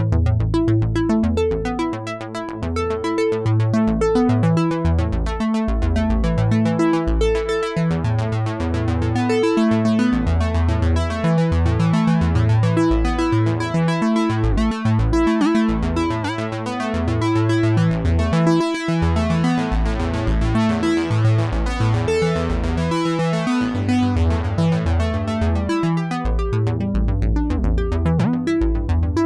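Oberheim OB-X8 analog polyphonic synthesizer playing a factory patch dry, with no effects: a moving bass line under chords and melody, with a fast pulsing rhythm in the notes.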